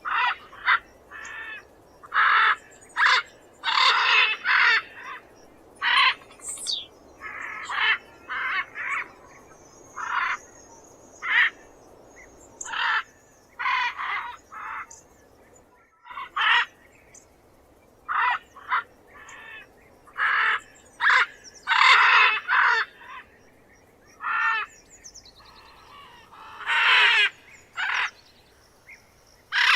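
Macaw squawking: an irregular run of short, harsh screeches, some single and some in quick clusters, with brief pauses between them.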